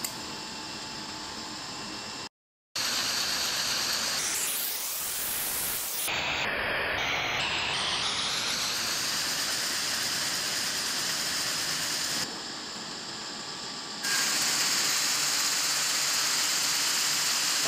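Steady hiss-like running noise of textile machinery, in several spliced stretches with a brief drop to silence about two seconds in.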